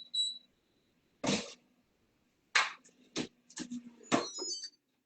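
An air fryer's control panel beeps once, then a string of sharp knocks and clatter follows as it is handled, with a few quick high beeps among the last knocks.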